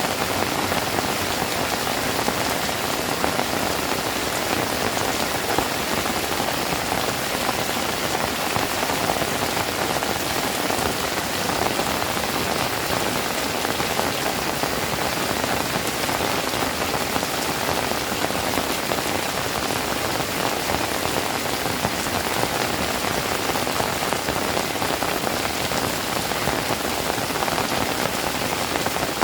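Steady rain falling, an even hiss with many small drop hits throughout.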